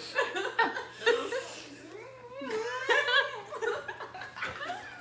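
A woman laughing in short bursts, with breathy gaps between them.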